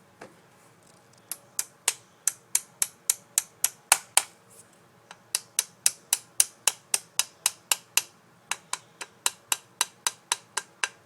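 Rapid, evenly spaced sharp clicks, about three to four a second, in three runs with short pauses between, from the mechanism of an Umarex Beretta PX4 Storm CO2 air pistol being worked by hand.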